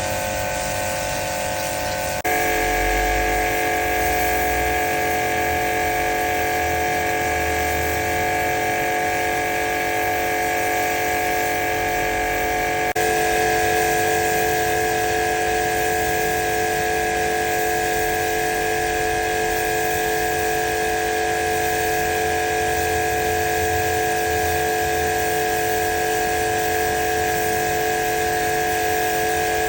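High-pressure washer running steadily, a constant motor-and-pump whine with several fixed tones. The tone changes abruptly twice, about two seconds in and near the middle.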